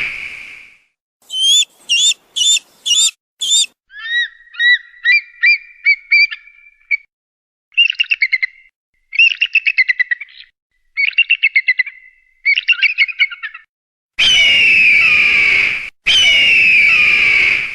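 Hawk calls: a screech fading out at the start, then a quick series of five high notes and several stretches of fast chattering calls, ending with two long, harsh, down-slurred screams near the end.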